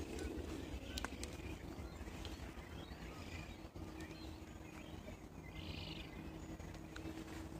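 Outdoor ambience: faint, scattered bird calls over a steady low rumble, with a short raspy call about three quarters of the way through.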